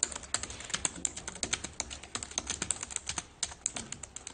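Fast typing on a computer keyboard: a rapid, uneven stream of key clicks.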